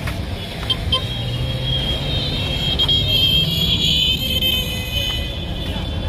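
Road traffic noise: a steady low rumble with a motor vehicle passing, swelling to its loudest around the middle and easing off again.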